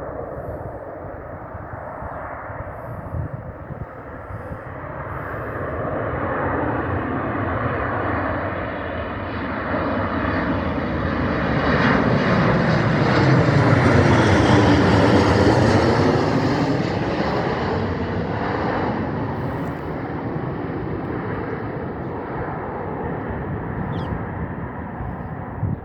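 Air Europa Boeing 737 jet passing by, its engine noise building to a peak about halfway through and then fading away.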